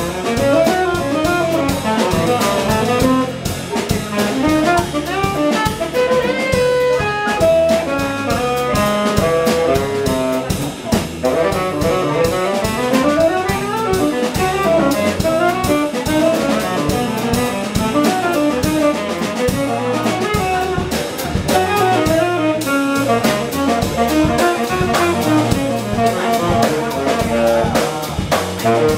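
Live jazz: a saxophone plays a moving melodic line over a drum kit keeping busy time, with guitar underneath.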